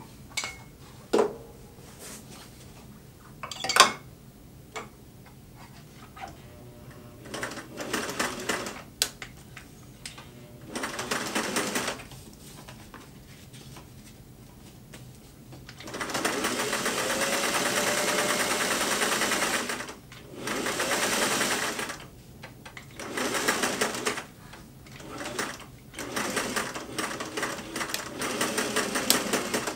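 Singer 503A Rocketeer sewing machine stitching in several separate runs, starting and stopping, the longest about three and a half seconds. Two sharp knocks come first, the second the loudest sound of all.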